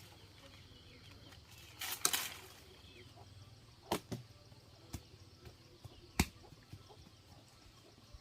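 A short swishing rustle about two seconds in, then four sharp knocks at irregular intervals, the last one the loudest.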